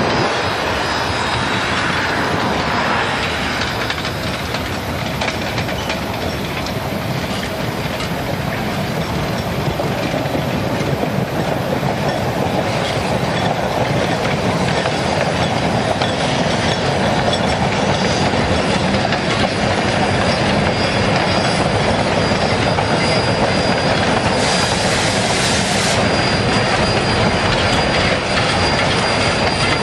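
Narrow-gauge steam train running past on curving track, its cars' wheels clattering over the rail joints. A thin high wheel squeal sets in during the later part, with a brief hiss near the end.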